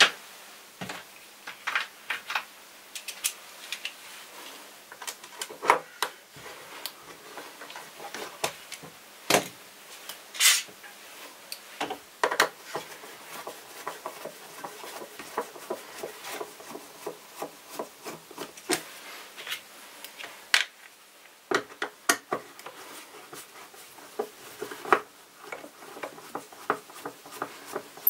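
Screwdriver working screws out of the plastic underside of a Vorwerk VR100 robot vacuum, with irregular clicks, knocks and rubbing of plastic parts being handled.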